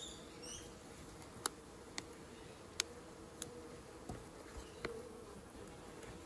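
Honeybees buzzing over an open mini nuc hive, a steady hum, with about six sharp clicks and knocks as the wooden frames are shifted along the box.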